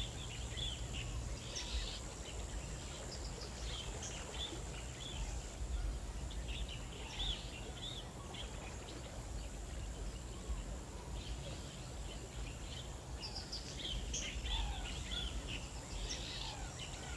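Faint outdoor ambience: short bird chirps scattered through, over a low steady hum and a thin steady high whine.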